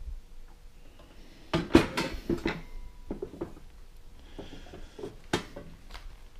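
Silver-plated metal box being handled, its hinged lid opened. There is a cluster of knocks and clanks about a second and a half in, a few lighter taps, and one sharp metallic click near the end.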